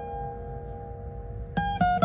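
J-35 acoustic guitar being fingerpicked. A chord is left ringing and slowly fades, then picked single notes start again about one and a half seconds in.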